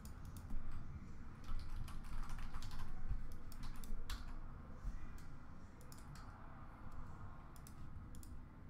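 Typing on a computer keyboard: irregular keystrokes, busiest in the first half and sparser toward the end.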